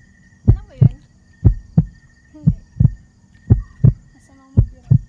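Heartbeat sound effect: a low double thump, lub-dub, about once a second, five beats in all, over a faint steady hum.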